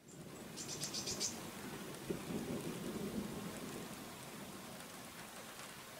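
Thunderstorm: steady rain hiss with a low roll of thunder that swells about two seconds in and then fades back into the rain. A quick run of faint high ticks comes about a second in.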